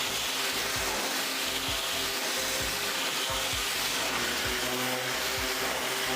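Background music with a steady beat and held notes, over a steady hiss of a high-pressure water cleaner's jet spraying.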